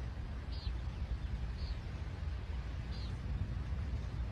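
Steady low wind rumble on the phone's microphone, with a bird giving three short high chirps about a second apart.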